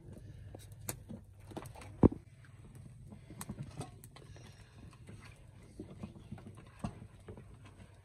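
Irregular knocks and scrapes of a wooden stirring stick working stiff food in a metal pot over a wood fire, with one loud thump about two seconds in. A low steady hum runs underneath.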